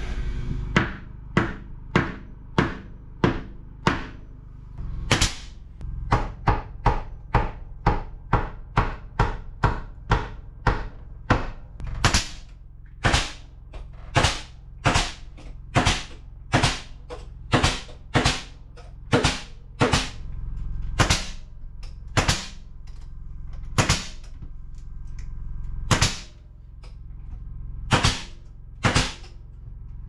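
Pneumatic trim nailer firing nails into wooden window casing. Sharp shots at an uneven pace of about one to two a second, dozens in a row.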